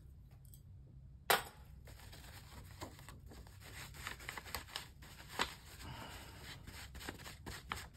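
Scraping of a tool clearing leftover stencil butter, with scattered light clicks and taps and one sharper click about a second in.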